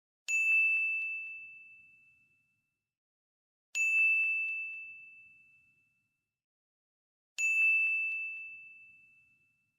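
Three identical high bell-like dings, about three and a half seconds apart, each a single clear ringing tone that fades out over about two seconds.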